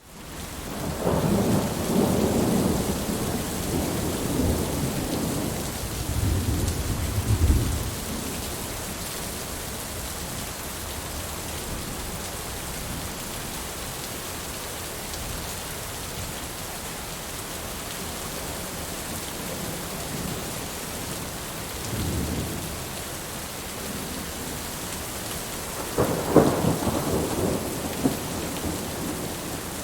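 Steady rain falling, with rolls of thunder rumbling over it: a long roll in the first several seconds, a short one past the middle, and another near the end.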